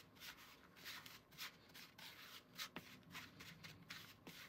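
Faint scraping and rubbing of a small spatula stirring crumbly flour dough in a plastic bowl, in quick, irregular strokes.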